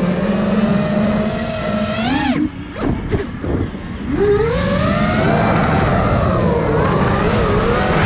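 The motors of an iFlight Nazgul Evoque F5 5-inch FPV quadcopter whine, their pitch sliding up and down with the throttle. About two seconds in, the whine climbs sharply and then cuts off as the throttle is chopped, leaving a rough, quieter gap. Just after four seconds the motors come back in with a rising whine and keep wavering in pitch.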